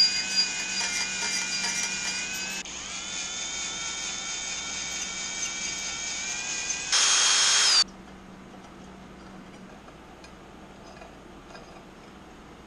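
Cordless drill running as its bit bores a 3/16-inch hole through an engine exhaust pipe for an EGT sensor. The whine drops in pitch a couple of seconds in as the bit bites into the metal, gets louder and harsher for about a second near the middle, then cuts off, leaving only faint handling clicks.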